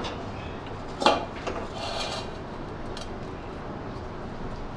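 A steel spatula knocks and scrapes against a stainless-steel kadhai and mesh strainer as thick cooked lentil filling is scooped into the strainer. There is one sharp knock about a second in, then a short metallic scrape and a few lighter clinks.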